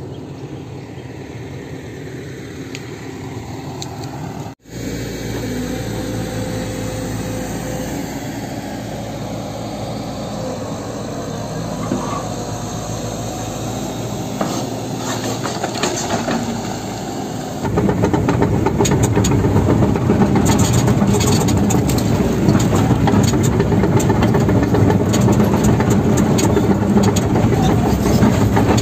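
Diesel engine of a hydraulic excavator running as it digs into rock, with scattered knocks. Then the louder, steady running of a heavy earthmoving machine's engine, heard from inside its cab.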